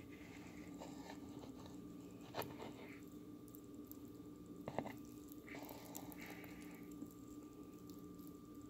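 Cooked potato pasta clumps being stirred with a utensil in a colander: soft, faint squishing of the moist pasta, with a couple of sharp clicks of the utensil against the colander, about two and a half seconds in and again near five seconds.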